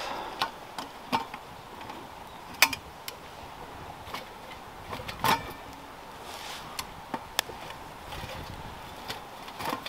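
Twigs burning and crackling in a small metal twig stove (a Bushcraft Essentials Bushbox), with scattered pops and two louder cracks about two and a half and five seconds in.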